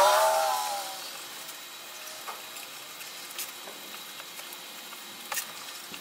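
Bar clamps being adjusted and tightened on a glued-up wooden drawer: a few light, scattered clicks and taps over a steady hiss. Right at the start a short falling tone fades out within about a second.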